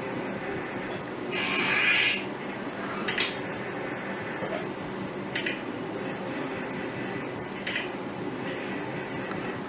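Arcade slot machine playing, with a steady hum under it. A bright jingling burst comes about a second and a half in, and a sharp click sounds every two seconds or so as the reels spin.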